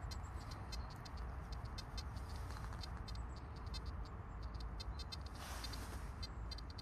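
Steady low outdoor rumble with faint, rapid high ticking throughout and a brief hiss about five and a half seconds in.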